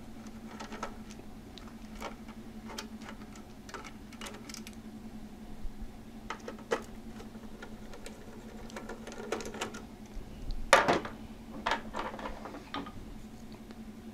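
Small, irregular metallic clicks and taps of a hand screwdriver and steel screws being worked loose from an oscilloscope circuit board, with the sharpest cluster near the end, over a steady low hum.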